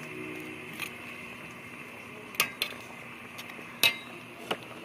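Stainless steel ladle knocking against the side of a stainless steel soup pot while stirring: about five sharp clinks, the loudest a little before four seconds in, over the steady hiss of the boiling soup.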